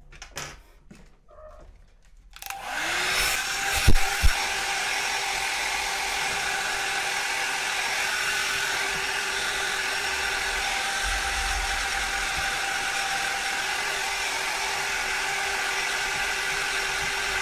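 A handheld hot-air blower switches on a little over two seconds in, its motor spinning up and then blowing steadily with a constant hum, used to dry water out of a Xiaomi electric scooter's opened handlebar display housing. Two sharp knocks come about four seconds in.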